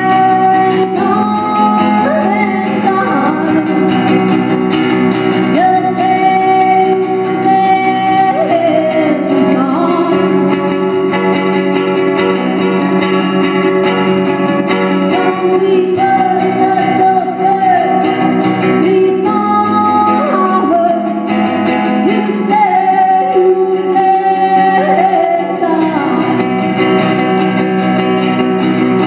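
A woman singing long, held notes with slides up into the pitch, over a steadily played acoustic guitar.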